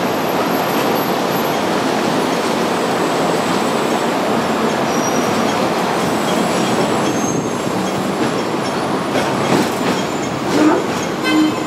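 Hong Kong double-decker tram running on its rails, a steady rumble of wheels and motor. Near the end come a few knocks and short wheel squeals as it takes a curve through a track junction.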